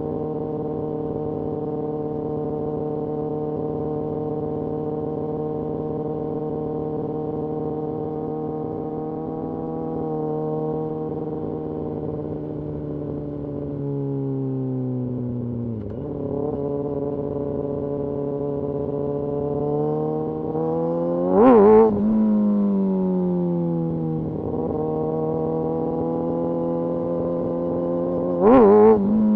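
Kawasaki Ninja ZX-6R's inline-four engine under way, holding steady revs for about thirteen seconds, then dropping in pitch and climbing again. Two brief, sharp rev spikes, about seven seconds apart, are the loudest moments.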